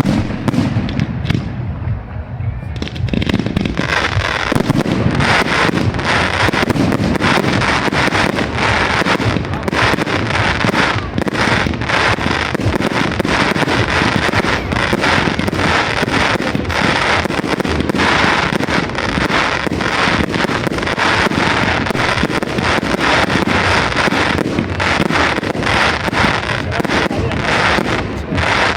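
Fireworks display: a few separate bangs, then from about three seconds in a dense, continuous barrage of bangs and crackling.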